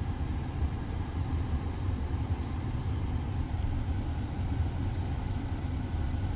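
A steady low rumble with no change in level.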